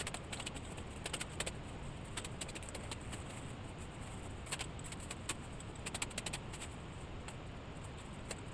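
Irregular light clicks and rattles, several close together about a second in and again in the second half, over a steady low background noise.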